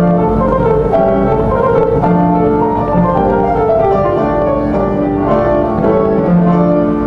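Solo grand piano playing a classical piece: a flowing line of single notes over sustained chords.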